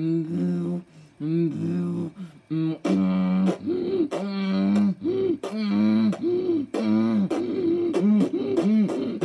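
A boy beatboxing: short hummed notes that bend up and down, punctuated by sharp pops and clicks from the lips and mouth.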